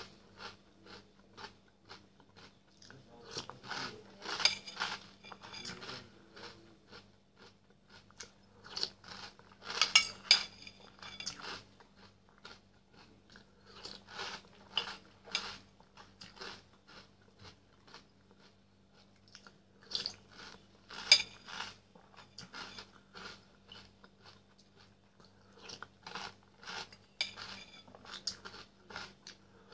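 Close-up crunching and chewing of Nesquik chocolate cereal balls in milk, in clusters of crisp crunches every few seconds, over a faint steady low hum.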